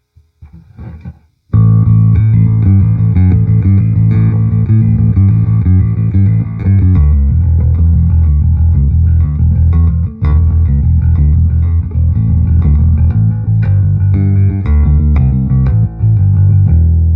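Fender Precision Ultra electric bass played through a Peavey VB-2 all-tube bass head on its clean channel, gain set for a little breakup, heard from a mic'd 2x10 cab mixed with the DI. A few soft notes, then a loud bass line starts about a second and a half in and ends on a long held note.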